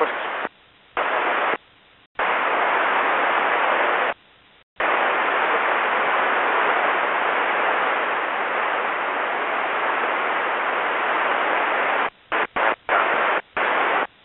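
Air-band radio scanner tuned to a military UHF frequency, putting out bursts of static hiss that cut in and out abruptly as the squelch opens and closes. The longest burst lasts about seven seconds, and a run of short choppy bursts comes near the end.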